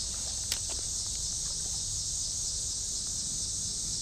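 Steady, high-pitched chorus of insects, with a single faint click about half a second in.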